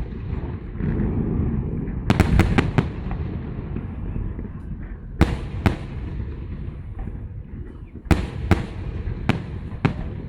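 Fireworks salute shells bursting in the sky as sharp bangs: a quick cluster of four about two seconds in, two more around five seconds, and four between eight and ten seconds, over a steady low rumble.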